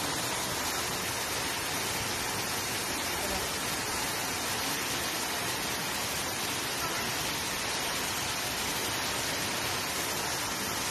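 Waterfall pouring down a rock face into a pool below: a steady, unbroken rush of falling water.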